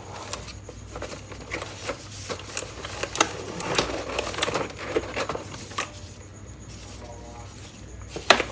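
Keyboard packaging being handled: the cardboard box and wrapping give irregular rustles, taps and clicks, with one sharp knock near the end.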